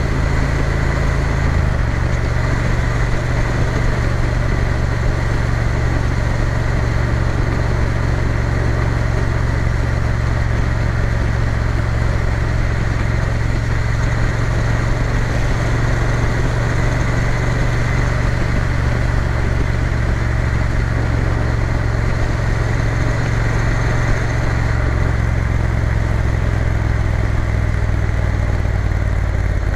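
Triumph Bonneville T120's parallel-twin engine running steadily under way, over a constant rush of wind and road noise. The engine note shifts slightly about a second and a half in and again near the end.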